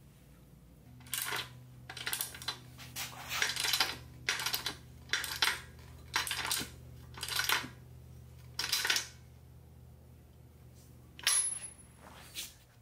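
Small metal parts being handled, clinking and scraping in a string of short rattles about once a second, over a faint steady hum.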